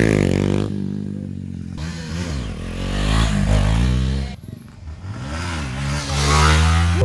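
Motorcycle engines revving hard during stunt riding, the pitch swooping up and down with the throttle. The sound changes abruptly several times, then rises loudly near the end as a bike is lifted into a wheelie.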